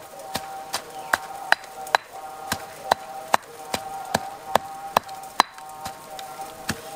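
Stone pestle pounding curry paste in a stone mortar: sharp knocks at an even pace of about two and a half a second, with a short gap near the end.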